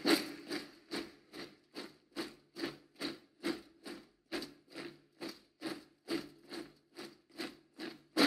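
Steady rhythmic beat, a little over two strokes a second, each stroke short and fading quickly, over a faint low drone, from a TV drama's soundtrack.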